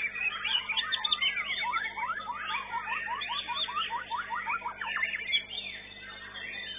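White-rumped shama (murai batu) singing: a fast, varied stream of whistled and chattering notes, with a run of rapidly repeated sweeping notes in the middle, thinning out near the end.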